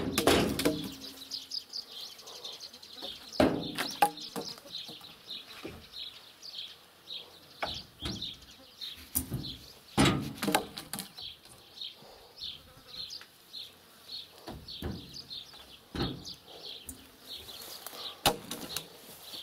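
Peeled wooden poles thrown off a truck bed, knocking and clattering onto a pile of poles several times, loudest right at the start. A steady, rapid high chirping runs underneath.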